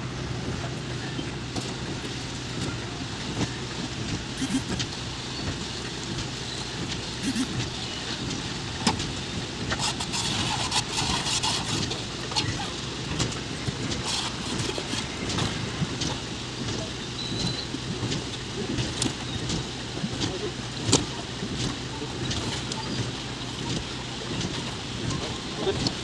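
Concrete pump's engine running with a steady low drone while wet concrete pours from the delivery hose onto the slab, with scattered knocks and splashes.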